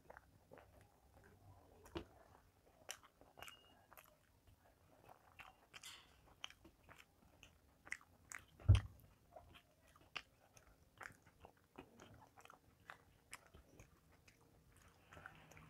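Close-miked chewing and wet mouth sounds of a person eating rice and fried vegetables by hand, with scattered small clicks and smacks. There is one louder thump a little past the middle.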